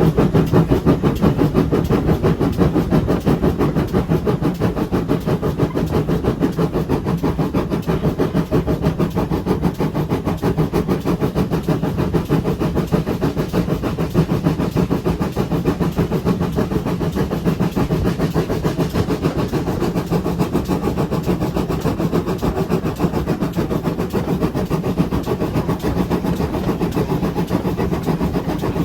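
Pannier tank steam locomotive 7714 and its train running along the line: a steady rumble with a fast, even rattle throughout.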